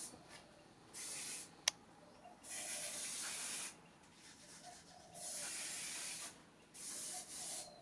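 Aerosol can of Selleys oven cleaner spraying in several short hissing bursts, each about a second long, with a sharp click between the first two.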